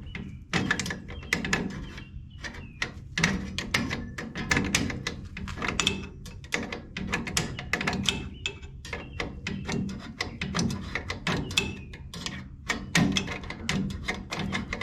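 Drum brake self-adjuster star wheel being turned by hand, its teeth clicking one after another past the adjuster lever, a few clicks a second in uneven runs, as the adjuster is run back in to set the shoes.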